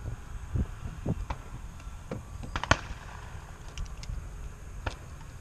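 Irregular clicks and knocks from a model airplane's airframe and camera mount as the plane is handled, the sharpest about halfway through, over a low rumble.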